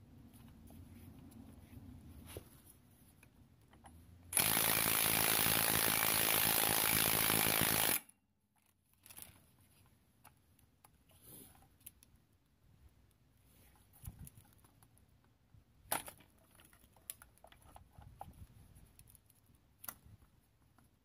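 Cordless impact wrench running in one burst of about four seconds that starts and stops abruptly, on the rear strut of a 2002 Saturn L200, with locking pliers holding the part. Before and after it, there are quiet clicks and scrapes of the pliers and metal parts being handled.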